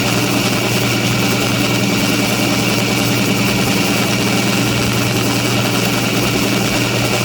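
Homemade air compressor with two-stage piston pumps and electric motors running steadily while building pressure in its tanks and air hoses: an even hum under a constant hiss.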